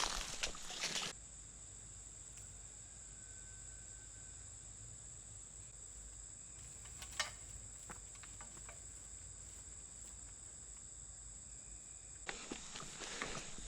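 Crickets singing in a steady, high, even chorus. Rustling in the first second, a single click about seven seconds in, and rustling again near the end.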